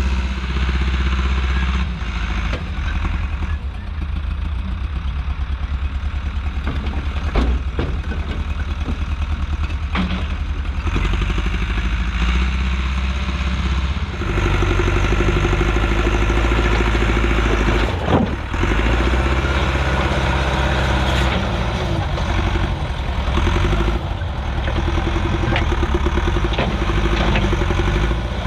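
Allis-Chalmers 655 track loader's engine running steadily as it works, stepping up in pitch and level about halfway through, with a few sharp knocks.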